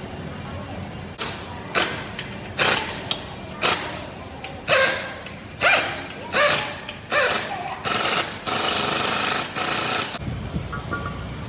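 Workshop tool noise during engine reassembly: a series of short, harsh bursts about one a second, ending in two longer bursts, over a steady low hum.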